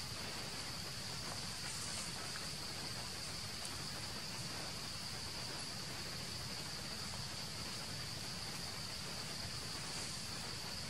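Forest insects droning steadily, one unbroken high-pitched tone, over a faint low rumble of background noise.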